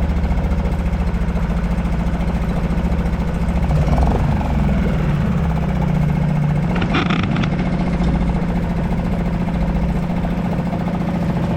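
Suzuki DF2.5 four-stroke outboard running steadily in a test bucket of water. Its note shifts briefly about four seconds in.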